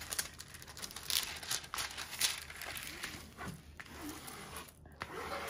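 Diamond painting canvas and its clear plastic cover film crinkling and rustling as they are handled, in scattered soft crackles.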